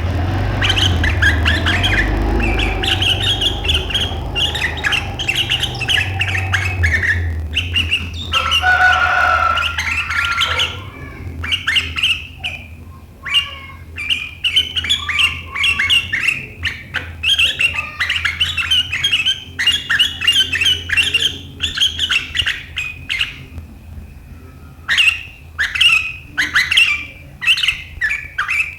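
Sooty-headed bulbul (kutilang) giving sharp, rapid chattering calls ('riwikan'): a dense run of chirps for about the first ten seconds, then shorter bursts with gaps between them. A low steady hum lies under the first part.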